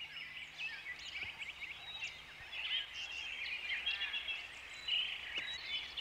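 Forest ambience of many small birds chirping together, a steady busy chorus of short high calls.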